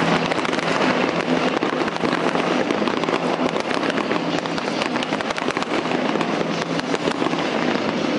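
Fireworks display crackling and popping: a dense, continuous stream of small sharp cracks from fountain fireworks and crackling sparkle bursts.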